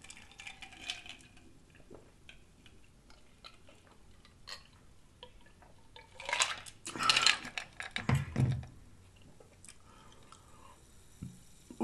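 A person drinking from a glass close to the microphone: a few loud sips and gulping swallows about six to eight and a half seconds in, with faint scattered clicks and taps before and after.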